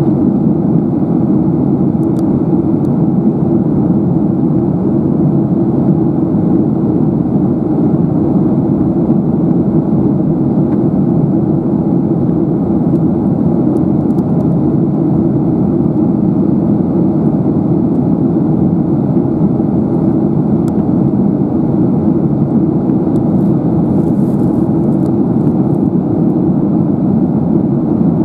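Steady cabin roar of a Boeing 737-800 airliner in flight: the jet engines and airflow heard inside the cabin from a window seat over the wing, a loud even rush that does not change.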